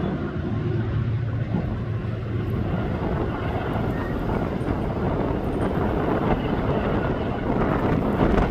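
Diesel train running by: a steady low engine drone under a rushing noise that grows louder near the end.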